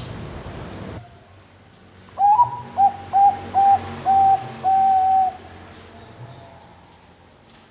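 Zebra dove (Bangkok perkutut song bird) singing one cooing phrase about two seconds in: a higher opening note, a quick run of short coos, then two longer held coos.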